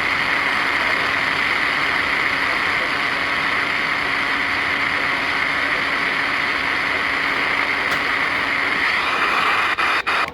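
Steady hiss of radio static from a weather radio receiver with no station signal coming in. It cuts off abruptly with a couple of clicks near the end.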